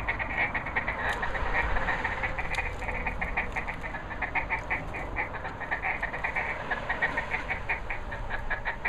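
Mallard ducks quacking in a steady chatter of short, rapid calls.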